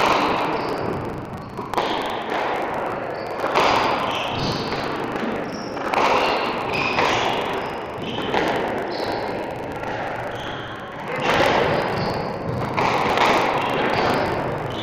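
Squash rally: the ball is struck by rackets and smacks off the court walls every couple of seconds, each hit echoing in the court. Short squeaks from the players' shoes on the wooden floor sound between the hits.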